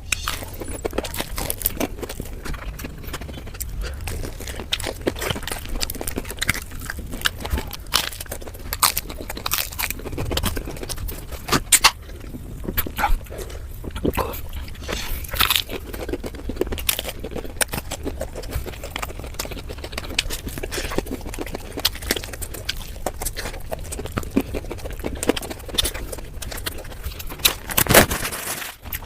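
Close-miked crunching, biting and chewing of crispy fried chicken, played at four times normal speed, so the crunches come as a dense, rapid crackle.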